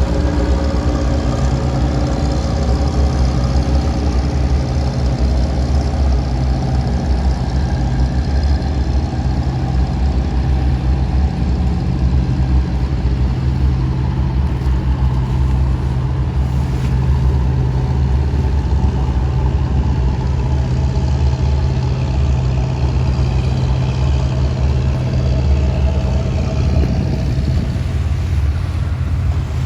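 Bottom-trawl fishing boat's diesel engine running steadily, a deep, even drone.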